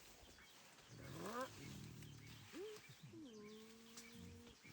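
Faint animal calls over quiet forest background: a call rising in pitch about a second in, a second short rising call, then a longer held call near the end, with light chirping above.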